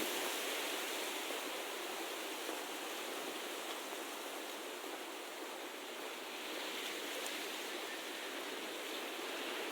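Steady, even rushing outdoor ambience with no distinct events.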